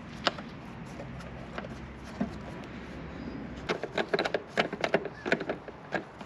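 Hand tools fastening a bolt and nut through a plastic motorcycle top case: a few light taps, then from just past halfway a quick, irregular run of sharp clicks as the nut is turned against a screwdriver holding the bolt head.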